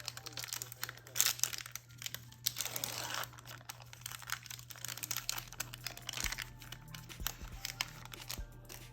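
Foil wrapper of a trading-card booster pack crinkling and rustling as it is handled, the crackle dense for the first five seconds and sparser after, over a faint steady low hum.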